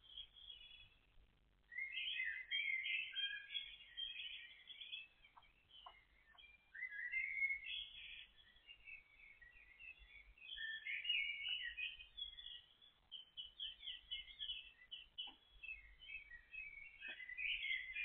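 Songbirds singing, many short high chirps and trills overlapping almost without a break, with a brief lull near the start.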